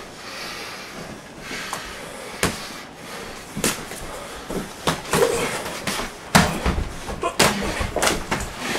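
Boxing gloves landing punches during a wild exchange: a run of sharp smacks and thuds, a few at first, then coming closer together in the second half.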